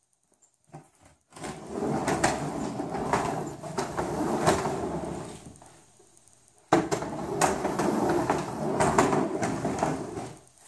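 A plastic storage tote rolling over a wooden ramp's PVC pipe rollers, a rattling clatter of knocks as it is pushed up for about four seconds. After a short pause it clatters back down for about four more, starting suddenly.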